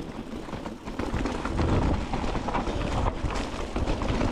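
Wind buffeting the microphone: a rough, rumbling noise that grows stronger about a second in.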